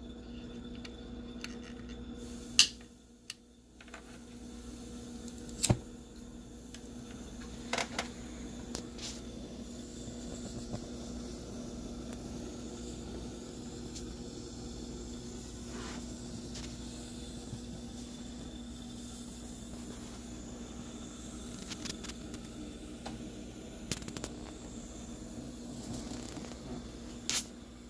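16-cylinder butane-fired Stirling engine running: a steady hum over the hiss of its burner, with a few sharp clicks.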